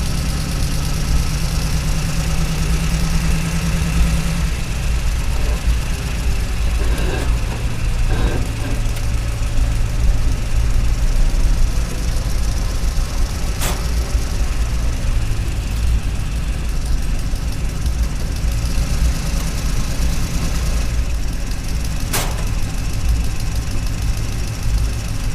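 Steady engine-like hum from a radio-controlled toy excavator running, dropping to a lower pitch about four and a half seconds in. Two sharp clicks about 14 and 22 seconds in.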